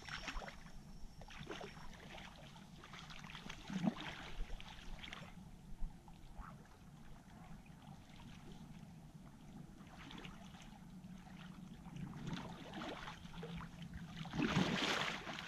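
Faint sloshing and splashing of shallow lake water as an angler wades out to land a hooked fish. It comes in irregular bursts, busier in the first few seconds and again near the end, quieter in between.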